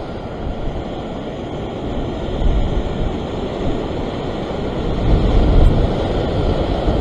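Wind buffeting the microphone over surf breaking on the rocks, a rushing noise that swells louder about two and a half seconds in and again from about five seconds.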